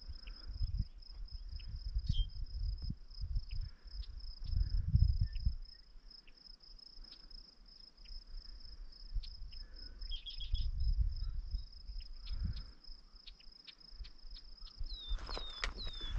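An insect singing a steady, high-pitched trill, with irregular low rumbles and a few short chirps near the end.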